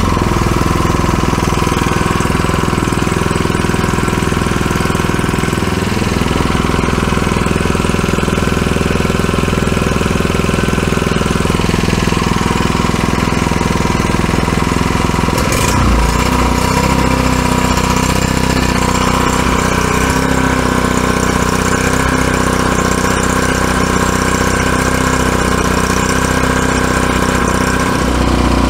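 New Predator 79cc single-cylinder overhead-valve four-stroke engine running steadily with no load, warming up just after a fresh start; its note shifts about halfway through. It runs fast rather than at idle, which the owner puts down to a governor that lets it rev up to about 5,000 RPM.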